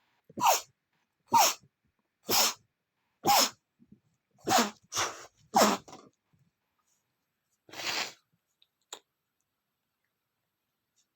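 A man sneezing in a rapid fit, about seven short sneezes roughly one a second, then a single noisy breath.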